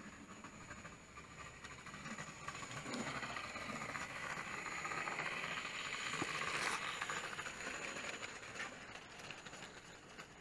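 Hornby OO gauge model train running on the layout's track: the whirr of the locomotive's motor and the rattle of its wheels over the rails build as it approaches, are loudest about two-thirds of the way in as it passes close, then fade.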